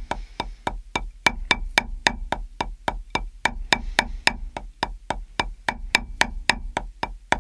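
Drumsticks striking a drum or practice pad in an even stream, about four strokes a second with alternating hands, loud accented strokes alternating with soft low taps: the full, down, tap and up stroke exercise for separating accents from quiet notes.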